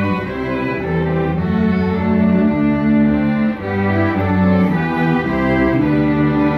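High school string orchestra of violins and cellos playing together, bowed notes held and changing about every second over a strong low cello line.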